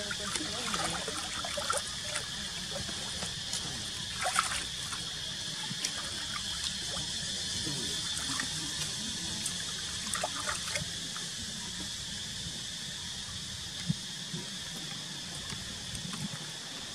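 Water trickling and stirring in a shallow pool where macaques wade and swim, with a few brief sharp sounds.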